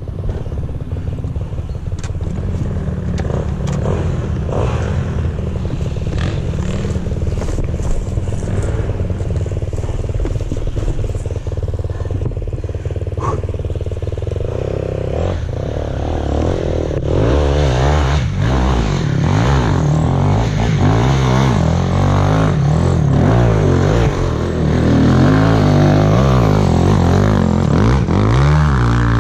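Dirt bike engines: one running steadily at idle close by, then from about halfway another revving up and down, louder, as it climbs the slope.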